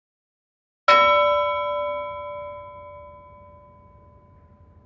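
A single bell-like metallic strike about a second in, ringing on with several tones and fading away over about four seconds before cutting off abruptly.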